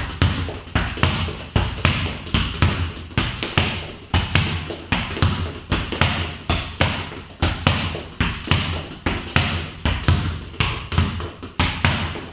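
A football kicked first-time against a wall again and again, alternating right and left foot, each kick and rebound a sharp thud, about two a second.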